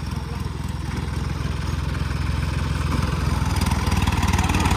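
Diesel engines of a Ford 3600 and a John Deere tractor running under load, chained back to back in a tug-of-war pull. The low, steady rumble grows gradually louder as they rev up.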